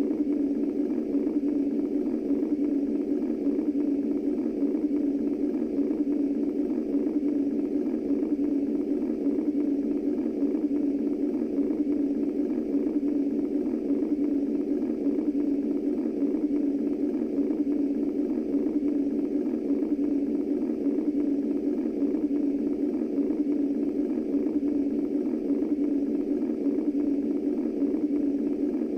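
Womb-style white noise for infant sleep: a steady, low, muffled rush concentrated in one low band, with no heartbeat pulse or other rhythm.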